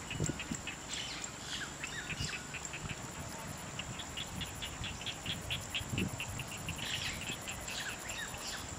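Outdoor birdsong: scattered bird chirps, with a rapid run of short chirps about four a second in the middle and another cluster near the end, over a steady high-pitched insect hum.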